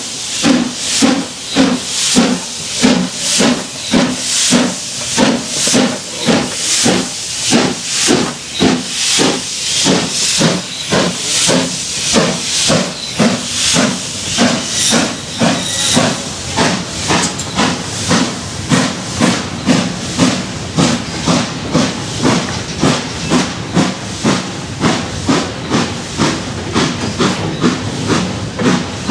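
Saddle-tank steam locomotive hauling a train of goods wagons, its exhaust chuffing in an even beat of about two to three a second over a continuous steam hiss. The beat quickens slightly about halfway through.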